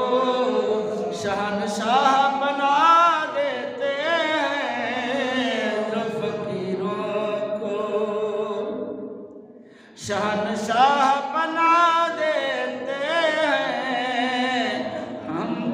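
Unaccompanied devotional singing: a voice holding long, ornamented sung lines with no instruments, breaking off briefly about nine seconds in and then starting a new phrase.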